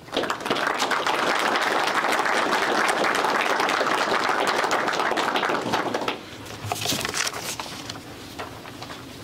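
Audience applauding, a dense patter of many hands clapping that stops after about six seconds, leaving a few scattered claps.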